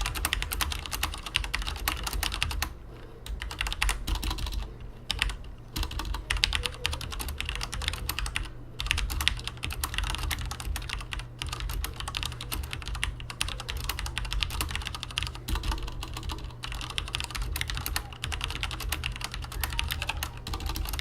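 Fast typing on a Logitech G610 Orion mechanical keyboard with Cherry MX Red switches: a dense, continuous clatter of keystrokes with a few brief pauses.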